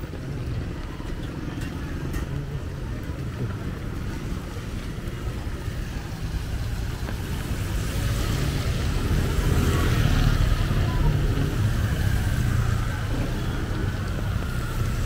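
Street traffic on a wet road in light rain: a steady low rumble, with a motorcycle passing about halfway through, its engine and tyre hiss swelling and then easing.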